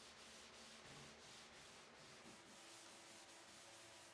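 Faint hand rubbing on a wooden surface: quick, even back-and-forth strokes, several a second, as in hand sanding or rubbing down a finish.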